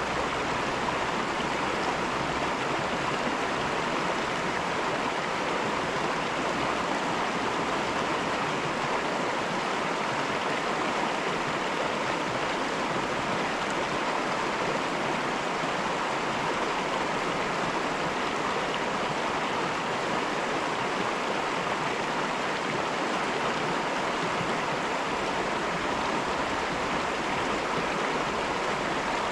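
Caribou River rushing steadily over rocks: a continuous even rush of flowing water.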